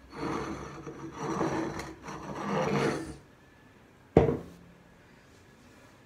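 Handling noise as things are rummaged and moved about: rubbing and scraping in three short spells, then one sharp knock about four seconds in.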